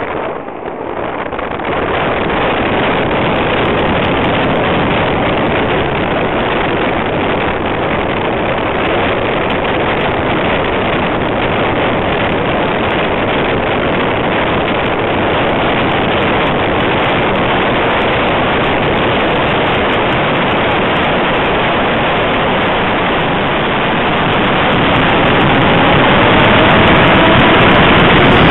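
Rush of airflow and motor noise picked up by a camera riding on a radio-controlled model Cub airplane in flight: a steady noise that grows louder near the end, with a faint rising tone as the motor speeds up.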